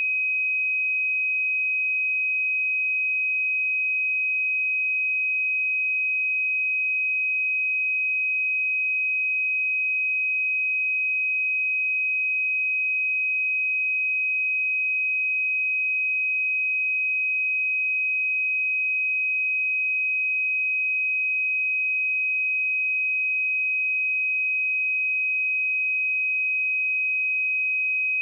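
A pure 2526 Hz sine-wave test tone, one steady high-pitched note held without change.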